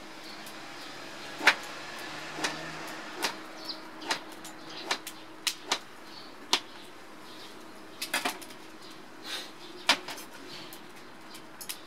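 Kitchen knife slicing boiled bamboo shoot on a plastic cutting board: about a dozen sharp, irregular knocks as the blade goes through and hits the board.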